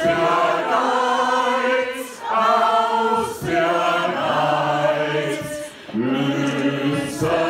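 Choir singing a German-language hymn, long held notes with brief breaks between phrases.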